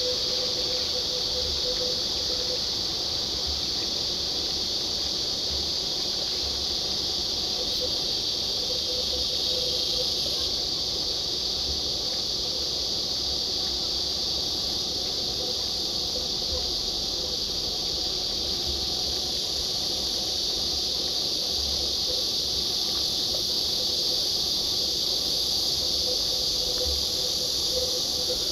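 A steady, high-pitched chorus of insects shrilling without a break, with a faint lower hum and scattered low thumps beneath it.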